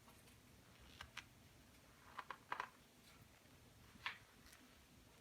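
Near silence: room tone with a few faint, short clicks scattered through it.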